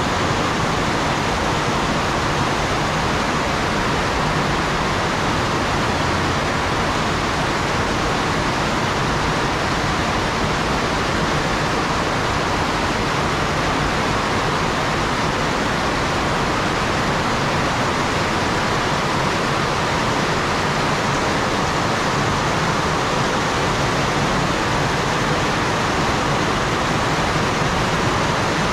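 Heavy rain falling in a steady downpour, a dense even hiss that holds constant throughout.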